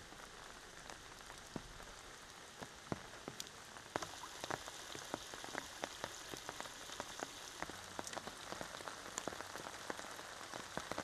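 Heavy rain falling steadily, with sharp ticks of single drops striking close by, which come more often from about four seconds in.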